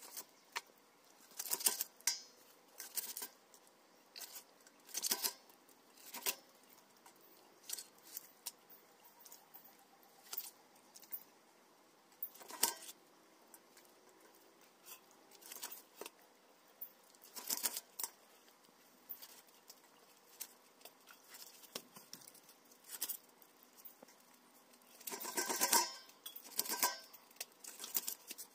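Raw chicken being cut into pieces with a large curved knife in a stainless steel bowl: irregular cuts, scrapes and clinks of the blade against meat, bone and the metal bowl, with a denser run of strokes near the end.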